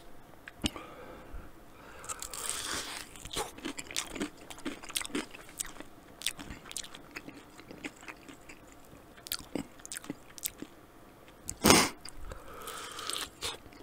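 Close-miked chewing and biting of a sauced chicken wing: wet crunches, lip smacks and small clicks, with one louder short burst near the end.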